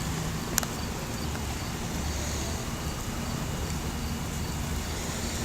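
Steady rain and wind noise of a thunderstorm, with a low rumble underneath and one sharp click about half a second in.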